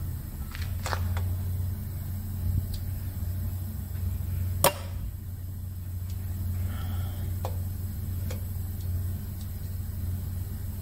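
Light metallic clicks from a Continental O-200's valve spring, retainer and keepers as the spring is held compressed with a lever tool to seat the keepers. There is one sharp click a little before midway. A steady low hum runs underneath.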